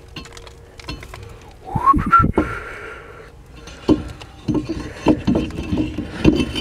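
Rusty brake disc rotor being worked onto the wheel hub by hand: metal scraping and knocking against the hub and wheel studs. A brief rising whistle-like squeal comes about two seconds in, and a run of short knocks follows in the second half.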